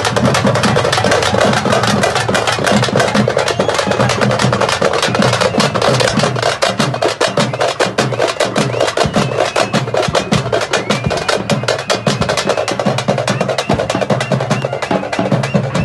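A festival drum troupe beating a fast, dense rhythm of hard drum strokes, many a second, loud and without a break.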